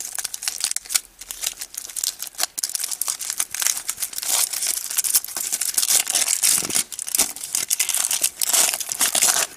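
Thin aluminium foil wrapper crinkling and tearing as it is peeled by hand off a chocolate surprise egg: a continuous run of sharp crackles, busier from about three seconds in.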